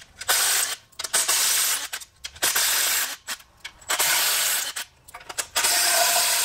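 Cordless impact with a 10 mm socket hammering out the exhaust manifold bolts on a GM LS engine, in repeated short bursts of under a second each.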